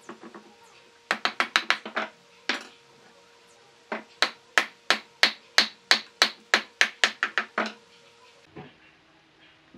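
Wooden mallet knocking on a wooden furniture frame, driving its joints together: a quick run of about seven blows, a single blow, then a steady series of about a dozen, roughly three a second.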